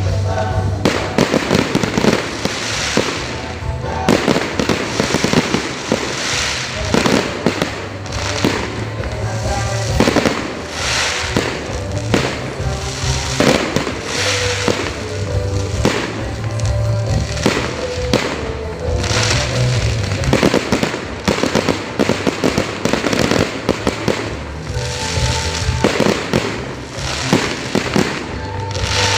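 Fireworks going off in a rapid, continuous string of bangs and crackles, with music playing underneath.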